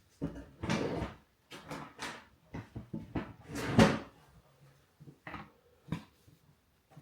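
Handling noises on a workbench: small objects clack and scrape as they are picked up and set down. A quick run of short knocks and rustles fills the first four seconds or so, then come a couple of lighter clicks.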